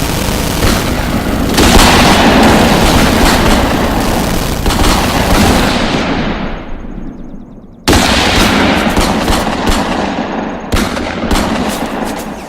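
Sound-effect gunfire: dense rapid machine-gun fire with booming reports. A long burst fades away over several seconds, then a second loud volley starts suddenly about eight seconds in and tails off near the end.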